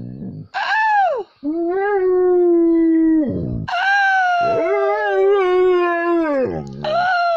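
Dog howling: a short falling howl, then three long howls in a row, each held on one pitch and dropping away at the end.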